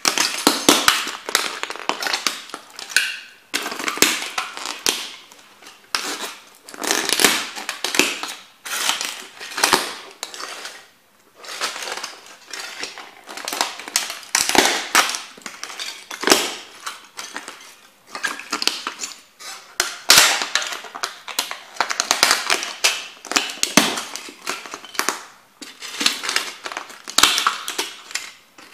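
Timberland boots stomping on and grinding the shattered pieces of a plastic kit model car: irregular cracking, crunching and snapping of hard plastic, in clusters with short pauses between.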